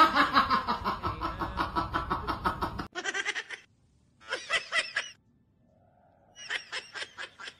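A person laughing in quick rhythmic pulses, breaking off abruptly about three seconds in, then laughing again in three short bursts with quiet gaps between them.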